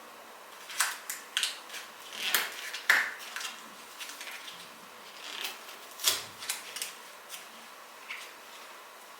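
Kitchen utensils and dishes being handled: a series of about a dozen irregular clicks, taps and clinks, spaced unevenly.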